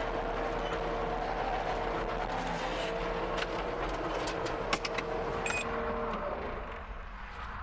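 Skid steer loader running, heard from inside the cab, with a steady whine over the engine that cuts off about six seconds in as the machine quiets. A few sharp clicks and rattles come near the five-second mark.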